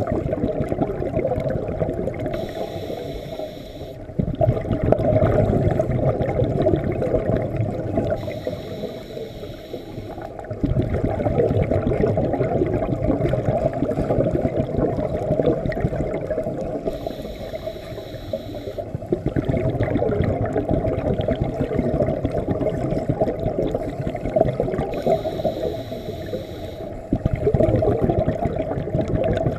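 Scuba breathing heard underwater: four slow breaths, each a hiss through the demand regulator lasting about two seconds, followed by a bubbling rumble of exhaled air that rises past the mouthpiece.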